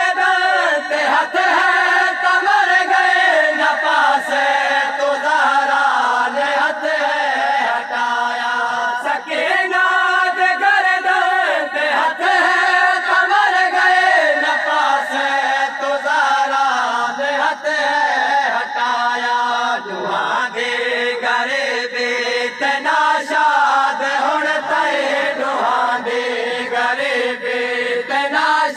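A group of men chanting a Shia noha lament in unison around a lead reciter, a continuous mournful melodic chant with no pauses.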